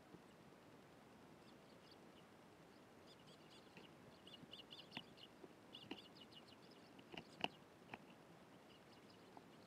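Eurasian tree sparrows chirping softly in quick runs of short, high chirps, starting about three seconds in, with a few sharp taps among them; the loudest tap comes a little past the middle.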